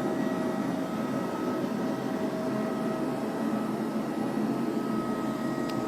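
iClebo Omega robot vacuum running steadily as it cleans: an even motor and brush hum with a few constant whining tones.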